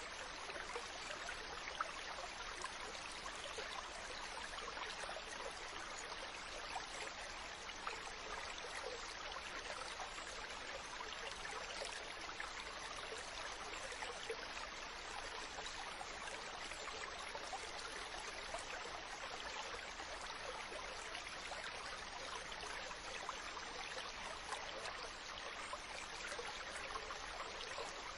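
Small stream of water flowing steadily, a continuous trickling and babbling with tiny splashes.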